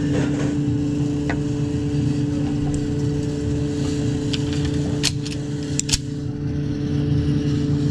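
Steady mechanical hum of an indoor shooting range's ventilation system, with a couple of faint clicks about five and six seconds in.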